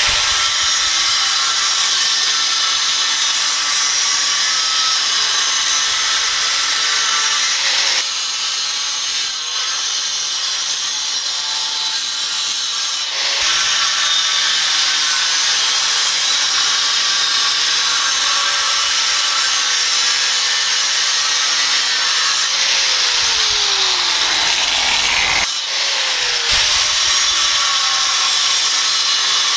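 Angle grinder with a diamond cut-off wheel cutting, a continuous harsh grinding hiss with a few brief dips in level.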